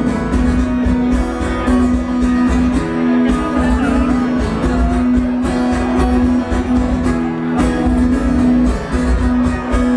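Live band playing an instrumental break with strummed guitar to the fore.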